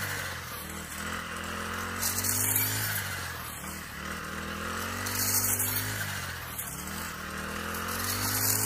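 Brush cutter with a rice-harvesting blade and steel gathering frame, its engine running under load and rising and falling in pitch as it is swung through standing rice. A swish of cut stalks swells about every three seconds, three sweeps in all.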